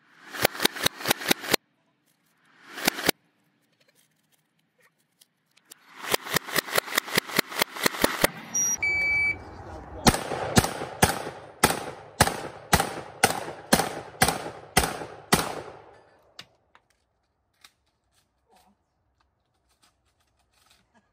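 Semi-automatic shotgun fired in fast strings at steel plates: a quick burst of about six shots, two more shortly after, a rapid run of about ten, a brief high electronic beep, then about eleven shots at roughly two a second.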